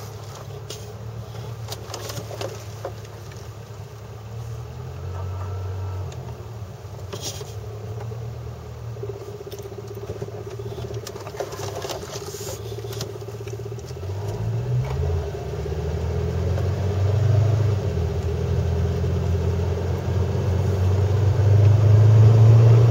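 A 2004 Pontiac GTO's V8 running while the car is driven, heard from the footwell and getting louder as it accelerates in the second half. In the first half there are a few sharp clunks from the front, which seems to be the right side. The clunk comes only on the first press of the gas pedal after the engine is started.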